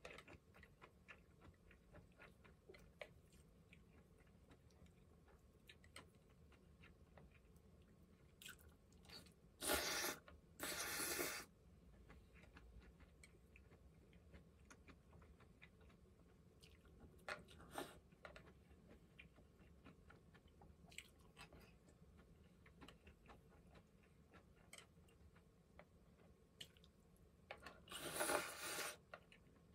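A person eating at the table: faint chewing and small clicks, with three short, louder noisy sounds, two about ten seconds in and one near the end.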